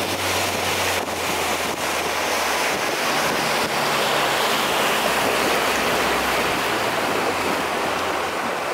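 Steady rush of wind on the microphone and water noise from a moving boat, with a low steady hum that fades after about three seconds.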